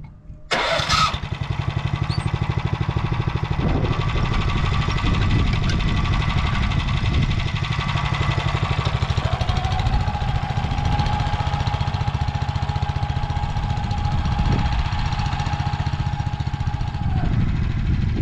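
Motor Sich walk-behind tractor engine running under load while ploughing, with a fast, even firing beat. It becomes loud suddenly about half a second in, and a steady higher whine sounds over it from about nine seconds in until shortly before the end.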